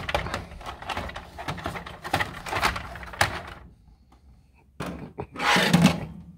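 Plastic parts of a CoinPro 3 vending-machine coin mechanism being handled and pulled apart: a quick run of clicks and knocks as the top portion comes off. After a short lull there are a couple more clicks and a louder rustling burst near the end.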